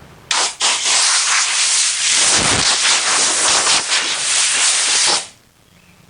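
Rubber decal-remover eraser wheel spun by an electric drill, rubbing old double-sided foam adhesive off the truck's paint: a steady, loud hiss that starts just after the beginning and cuts off about five seconds in.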